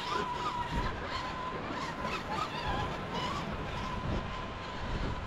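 A small motor whining at a steady pitch over a rough, rumbling noise.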